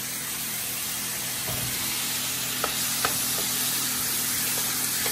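Minced garlic sizzling in a little leftover beef grease in a nonstick frying pan, a steady frying hiss. A couple of light taps a little past halfway as a wooden spoon stirs it.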